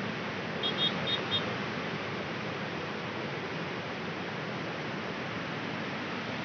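Floodwater rushing fast and steadily across a submerged road, a continuous churning wash of water. About a second in there are four or so short, high chirps.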